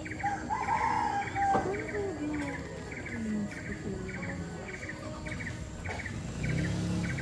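Steady, rhythmic chirping, about two short chirps a second, each a quick cluster of two or three notes, with a brief wavering call about a second in.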